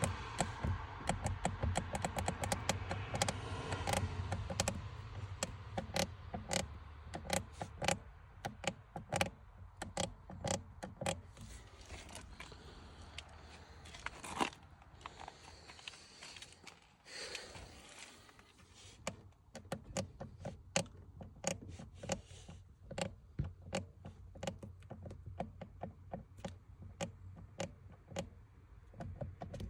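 VW Passat B8 clutch pedal making a strange noise as it is worked: many irregular clicks and knocks, several a second at times. A low steady hum runs under the first half.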